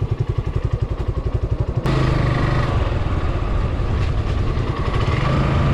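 Single-cylinder Suzuki Gixxer SF motorcycle engine idling with a fast, even pulse, then about two seconds in switching abruptly to a steady, denser engine drone with wind noise as the bike rides on.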